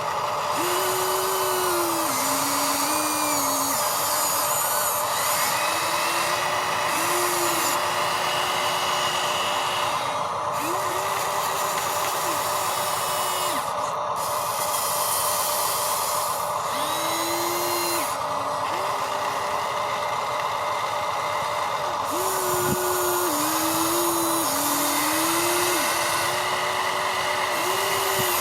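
Electric motors of a Huina RC construction machine whining in spells of one to three seconds, the pitch dipping and rising as the controls are worked, over a steady motor hum.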